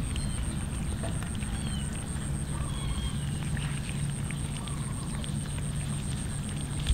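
Several cats eating cooked rice from a metal tray: faint, scattered small clicks of chewing and licking, over a steady low hum, with a few short high chirps.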